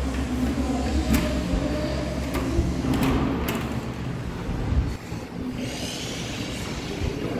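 A uPVC balcony door being unlatched by its handle and swung open, with a few sharp clicks from the handle and latch, over a steady low rumble.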